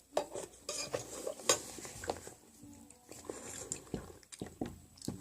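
Eating utensils clinking, scraping and stirring against a dish in a run of irregular small knocks, as rice is mixed into leftover ramen broth.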